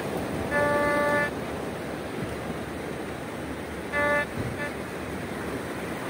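Hobby metal detector with an analogue meter sounding buzzy tone signals as its coil sweeps wet beach sand, the sign that metal lies under the coil: one beep under a second long about half a second in, then a short beep and a brief blip about four seconds in. A steady hiss of surf runs underneath.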